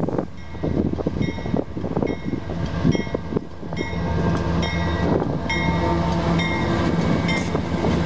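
Two Union Pacific diesel freight locomotives approach and pass close by. Their engines run with a steady low drone that grows louder about halfway through, along with short high-pitched squeaks that recur about every second.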